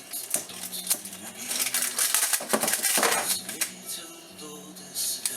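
Small metal objects clinking and rattling against each other in a quick run of knocks, densest in the middle and thinning out toward the end.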